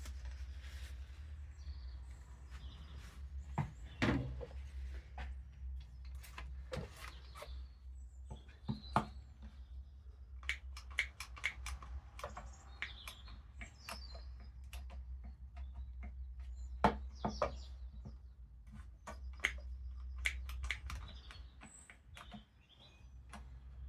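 Scattered light knocks, taps and clicks of hands working on a freshly glued and clamped wooden chair, with birds chirping in the background and a steady low hum underneath.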